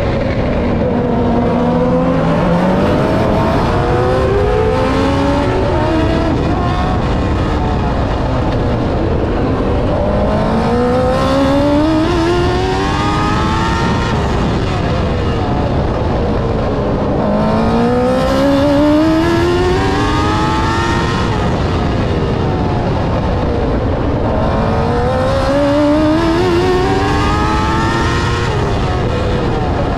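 TQ midget race car's engine heard onboard at racing speed, its pitch climbing in a long rising sweep down each straight and falling off into the turns, about four times, over steady wind and road noise.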